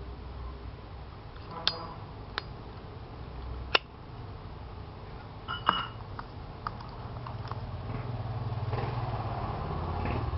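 Sharp metallic clicks and clinks from Zippo lighters being handled, about half a dozen, two of them with a brief metallic ring. A low steady hum under them grows louder in the second half.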